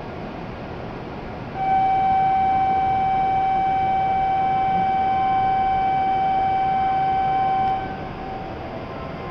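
Platform departure signal: one steady electronic tone, a single unchanging pitch, sounding for about six seconds from a second and a half in, warning that the train at the platform is about to leave. A steady station hiss runs under it.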